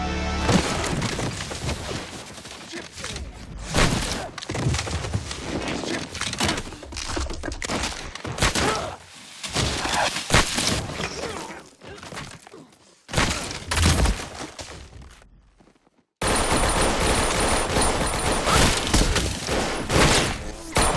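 Film sound of sustained automatic gunfire, with rapid shots and bullet impacts. It drops away sharply for a moment about three-quarters of the way through, then comes back at full density.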